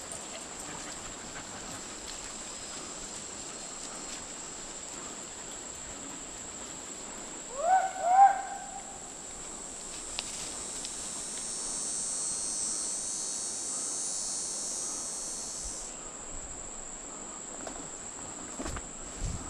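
Hunting hound giving two quick yelps about eight seconds in, each rising in pitch.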